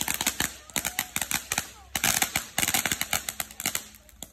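Small firecrackers going off in a rapid, irregular string of sharp crackling pops, thinning out near the end.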